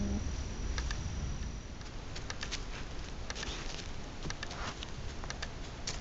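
Outdoor audio recorded by a Hawk Ray trail camera: irregular small clicks over a steady low rumble and hiss, with a faint high whine that stops about two seconds in. The clicking is a recording artefact that this camera puts into some of its videos, for no reason the owner knows.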